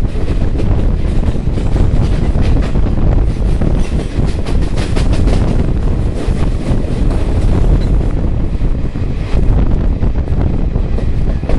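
Goa Express passenger train running at speed, heard from an open coach door: a steady loud rumble of wheels on rails with wind buffeting the microphone, and a run of quick rattling clicks in the middle.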